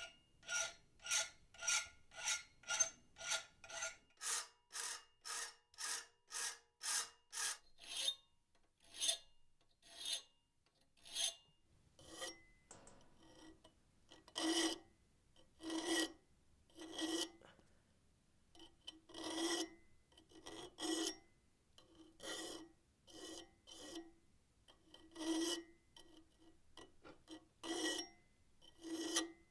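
Hand file rasping across a wrought iron latch handle in regular strokes, quick at about two a second at first, then slower strokes about one a second from roughly the middle on.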